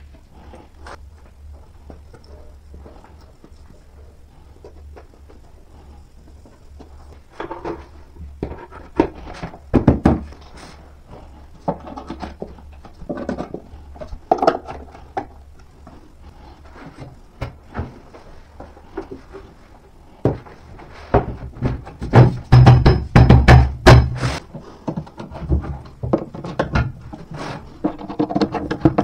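Hand assembly of an IKEA Alex desk's particleboard panels and metal drawer runners: scattered clicks, taps and knocks as fittings are pushed in, screws driven and panels handled, with a run of loud heavy knocks about three-quarters of the way through.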